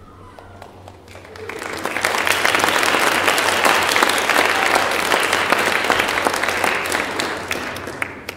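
Audience applauding, swelling in over about a second and slowly dying away near the end.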